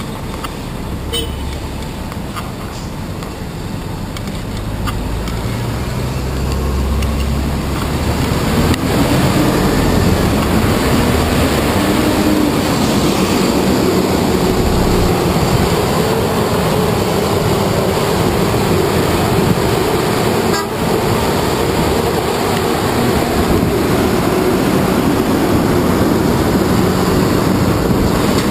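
Busy city traffic heard close beside a coach bus: engine running and tyre noise under a dense, steady rushing haze that grows louder about eight seconds in.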